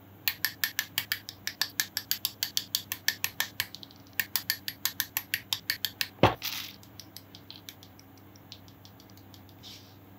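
Hobby nippers cutting plastic model-kit parts off the runner: a fast run of sharp plastic clicks, about eight a second, with a short break about four seconds in. One louder snap comes a little after six seconds, then a few scattered, fainter clicks.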